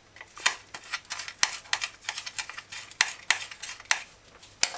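Kitchen knife chopping scallion against a plate: an uneven run of sharp taps, about three or four a second.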